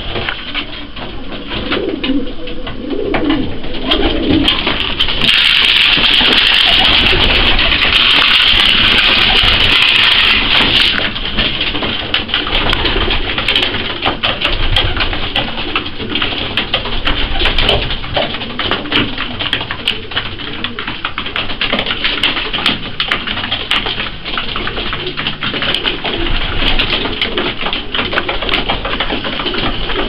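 Racing pigeons cooing. A loud rustling rush about five seconds in lasts several seconds, and many quick sharp taps of beaks pecking grain in a wooden feed trough run through.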